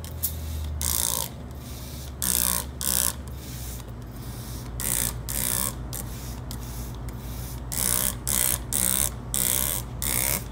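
Hand trigger spray bottle squirting a concrete-dissolving liquid onto cement-crusted glass: about ten short hissing sprays, coming in pairs and clusters.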